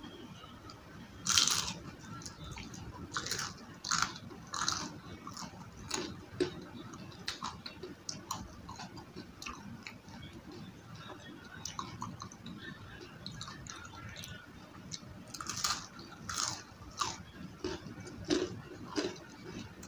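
Close-miked crunching bites into battered, deep-fried onion rings, with chewing in between. The loudest crunch comes about a second in, and another run of crunches comes near the end.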